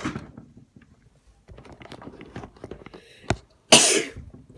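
A person tickling the inside of the nose with a rolled-up tissue, with small sniffing and snuffling noises, then a short breath and, a little before the end, one loud sudden sneeze.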